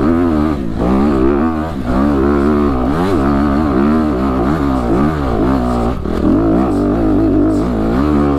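Dirt bike engine pulling up a steep, rutted dirt hill climb, its revs repeatedly rising and falling as the throttle is worked.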